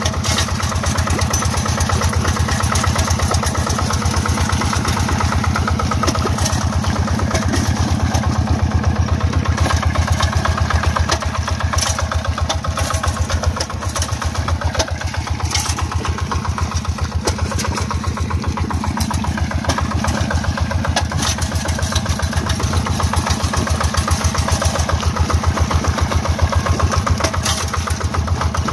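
Two-wheel hand tractor's single-cylinder diesel engine running steadily with a fast, even pulse while it pulls its cage wheels and harrow through flooded paddy mud.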